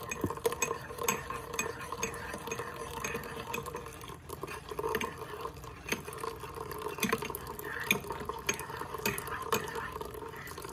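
Metal spoon stirring and clinking against a ceramic mug, with many short clinks, as hot coffee runs into the mug from a Cuisinart single-serve coffee maker. A steady hum from the brewer runs underneath.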